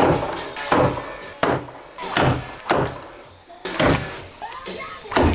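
A run of about seven heavy chopping blows, half a second to a second apart, each a sharp thwack that dies away quickly: a blade chopping through a gar's armoured body as the fish is cleaned and the head taken off.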